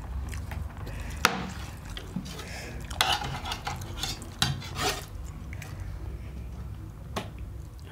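A metal spoon scraping and clinking against steel plates, with a few sharp clinks, while hands mix rice and curry.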